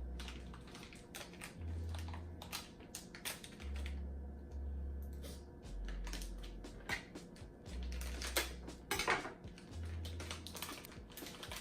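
Plastic snack wrapper being handled and opened: irregular crinkling and crackling in many short clicks.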